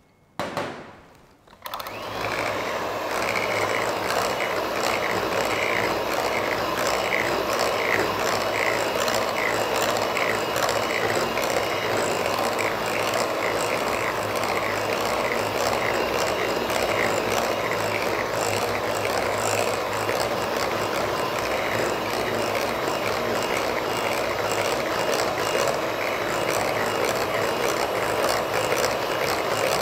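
Electric hand mixer beating eggs into creamed margarine and sugar in a glass bowl for cake batter. It gives a short burst about half a second in, then runs steadily from about two seconds in.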